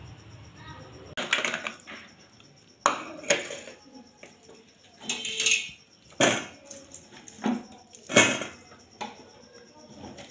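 Garlic cloves, ginger pieces and onion slices dropped and tipped into a glass container: a series of sharp clatters and knocks on the glass, with a longer scraping rustle about halfway through.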